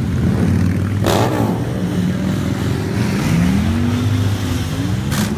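A column of cruiser motorcycles rumbling past, with engines running together and one rising in pitch as it revs up about three seconds in. Short bursts of hiss come about a second in and twice near the end.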